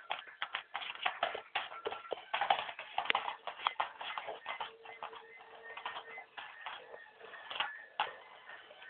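Two dogs scuffling over a toy on a hard wooden floor: fast, irregular clicking and scrabbling of claws and paws. A thin held tone sounds briefly about halfway through.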